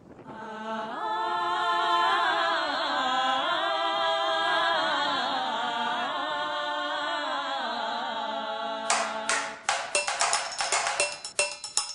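Background music: held, wavering singing voices, then about nine seconds in a fast percussion beat comes in.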